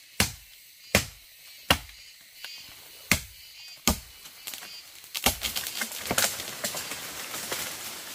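A blade chopping into wood, five hard strokes about three quarters of a second apart with a short pause in the middle. From about five seconds in, a busier stretch of rustling with many small cracks follows.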